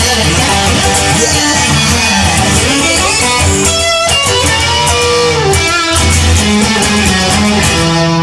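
Instrumental break in a rock song: electric guitar playing over bass and drums, without vocals.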